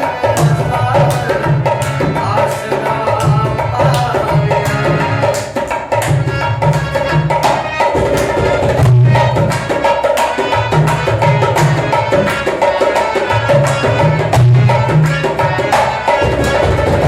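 Instrumental music: tabla-style hand drums playing a steady, driving rhythm with deep bass strokes, under a held melody line.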